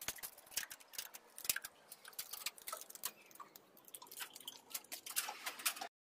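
Faint, irregular clicks and light taps, several a second and unevenly spaced.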